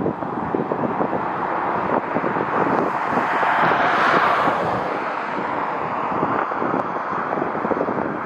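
An aircraft passing close by: its engine noise swells to a peak about four seconds in and then eases off, with wind buffeting the microphone.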